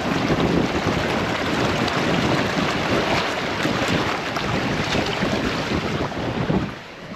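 Water rushing and sloshing against a 4x4 as it wades slowly through deep water, a steady loud wash that drops off abruptly near the end.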